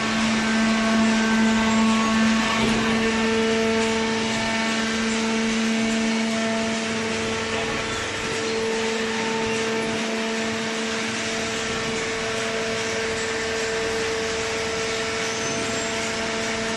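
Horizontal hydraulic cardboard baler running: a steady machine hum with a few held tones over constant mechanical noise, its tone shifting slightly about three seconds in.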